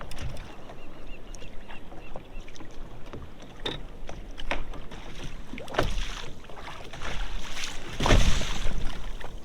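Scattered knocks and clicks from handling a fish and tackle aboard a fishing kayak, with a faint run of small repeated high chirps in the first two seconds and a louder rush of noise about eight seconds in.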